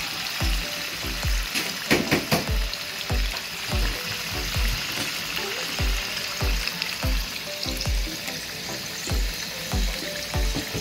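Whole potatoes and carrots sizzling steadily in hot oil in a frying pan. A few sharp clicks about two seconds in, under background music with a steady low beat.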